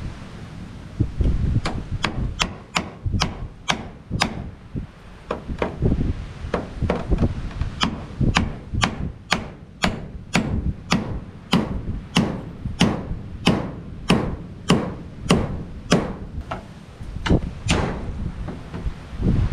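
Hammer driving nails to fix corrugated tin sheeting to a wooden frame, in steady blows about two a second with a short break early on.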